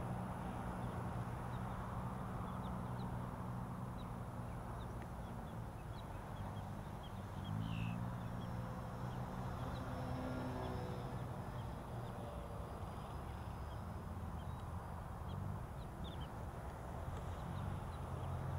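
Foam delta-wing model airplane's motor and pusher propeller droning steadily as it flies. The pitch shifts up and down about eight and eleven seconds in as it turns and passes.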